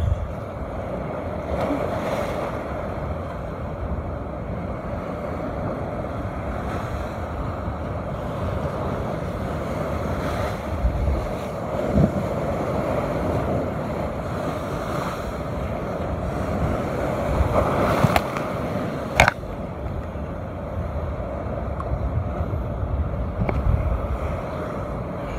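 Strong wind buffeting the microphone over surf breaking and washing across rocks. About three quarters of the way through there are two sharp clicks.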